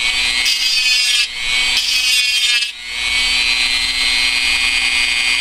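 Dremel rotary tool with a grinding stone, running at about half speed, chamfering the edge of a metal wind chime tube. There is gritty grinding in the first half, broken twice by short gaps as the tube is eased off the stone. Then comes the tool's high-pitched whine alone, running free once the tube is lifted away.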